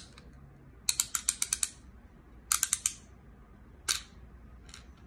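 Quick runs of small plastic clicks from the twist lever of a miniature claw-machine toy being turned, then a single click about four seconds in; the mechanism is stuck, as the owner thinks.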